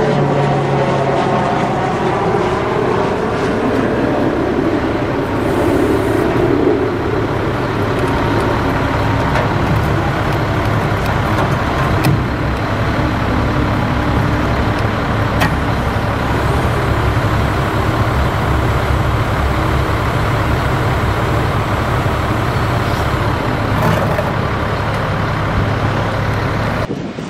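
International 7500 crane truck's diesel engine running steadily, powering the crane's hydraulics while the outriggers are worked, with a whine that bends in pitch during the first few seconds.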